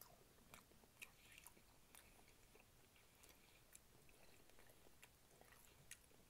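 Faint, close-up mouth sounds of a person chewing oxtail meat: irregular wet clicks and smacks scattered through the whole stretch.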